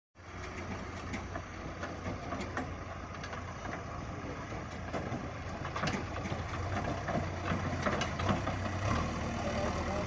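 JCB 3DX backhoe loader's diesel engine running as the machine drives across a sand pit, with frequent knocks and rattles. It grows somewhat louder in the second half.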